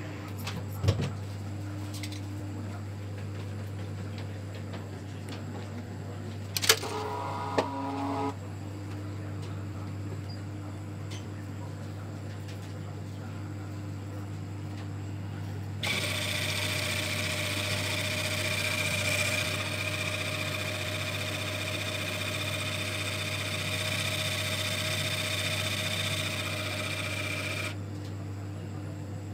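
Automatic wine dispenser at work: a few clicks and a short electronic tone as a token is taken, then its dispensing pump runs with a steady whine for about twelve seconds while filling a one-litre bottle, and stops, over a constant low hum.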